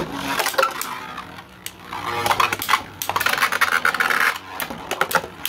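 3D-printed beyblades spinning in a plastic stadium: a scratchy whirring of their tips on the stadium floor, broken by many sharp clicks as the tops strike each other and the walls. A sharp click right at the start as the second top is launched in.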